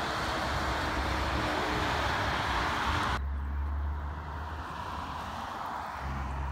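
Steady roar of highway traffic, tyres and engines, as a Cat tank truck goes by. It cuts off abruptly about three seconds in, leaving a much quieter roadside with a low rumble and a faint falling whine of a distant vehicle.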